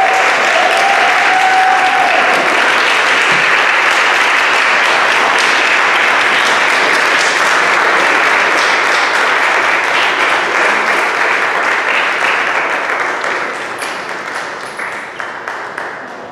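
Audience applauding, steady at first and then dying away over the last few seconds.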